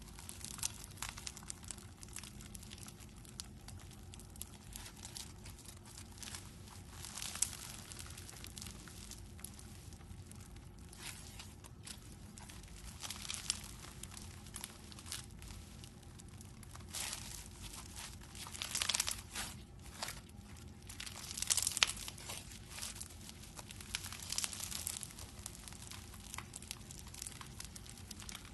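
Foam-bead slime (floam) squeezed, kneaded and stretched by hand, the packed foam beads giving many small irregular crackles. The loudest clusters come in a few squeezes a little past the middle.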